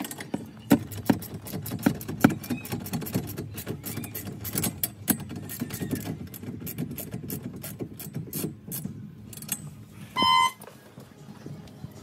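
Ratcheting socket wrench clicking in quick, uneven runs as the harness bar's mounting bolt is tightened, with tools and metal parts being handled. A short electronic beep sounds once about ten seconds in.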